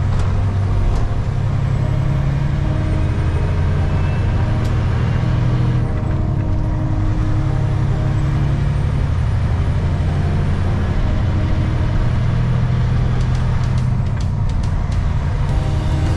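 Semi truck's diesel engine droning inside the cab while driving. The engine note breaks and settles to a new pitch about six seconds in and again near the end as the driver upshifts the 13-speed manual transmission.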